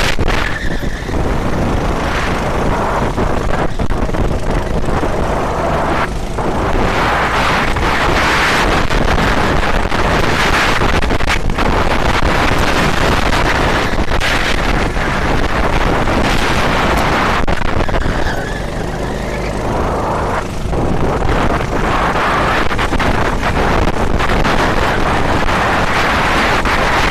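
Racing vehicle heard from an onboard camera during a race: engine and rushing wind noise at speed, easing off briefly several times, with a longer lull about two-thirds of the way through.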